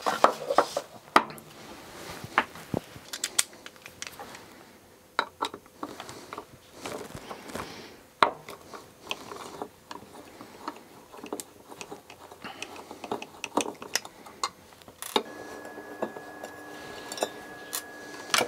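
Hand screwdriver backing small screws out of a solar charge controller's solid metal enclosure, giving scattered small metallic clicks and clinks as the screws turn, come loose and are set down. A steady hum comes in about fifteen seconds in.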